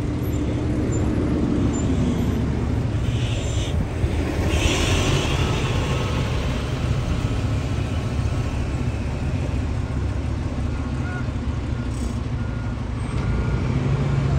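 Road traffic: vehicle engines running with a steady low rumble, and a short hiss about four seconds in.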